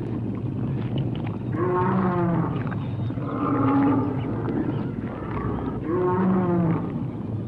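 Dinosaur roar sound effect: three drawn-out, deep animal calls, each about a second long, the first and last alike, over a steady low rumble.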